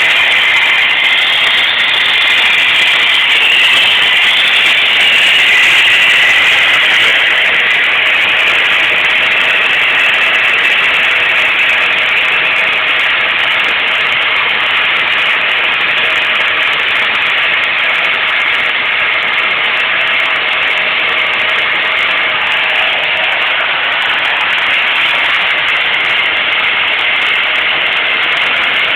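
1991 Chevy S10's 2.5-litre four-cylinder engine running at an uneven, high idle, a steady hissy drone that is a little louder over the first several seconds. The owner has not found the cause: vacuum hoses show no leaks, and he suspects the engine computer or its PROM chip.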